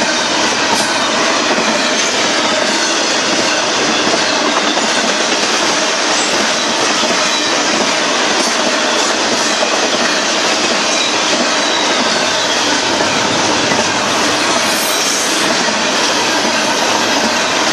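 Union Pacific intermodal freight train's double-stack container cars rolling past: a steady, loud rolling noise of steel wheels on rail.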